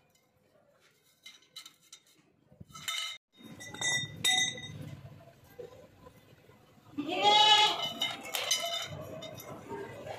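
Cut square steel tubes knocking and clinking as they are set down and shifted on a concrete floor, a few strikes ringing briefly. About seven seconds in comes a loud, wavering, pitched call lasting under a second, the loudest sound.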